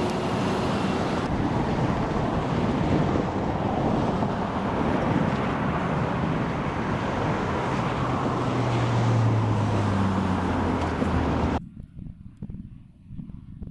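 Steady roadside traffic noise with wind buffeting the microphone. A passing vehicle's engine grows louder about eight seconds in, then the sound cuts off abruptly near the end.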